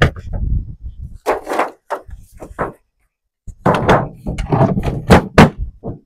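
Wooden beehive lids being set onto and fitted over two brooder-box hives: a run of short wooden knocks and scrapes, a brief pause about halfway, then more knocks.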